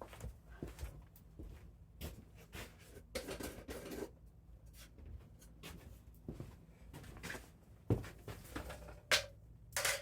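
Scattered knocks and clicks of tools and metal parts being handled while working on a snowblower's gear selector mechanism, over a low steady hum.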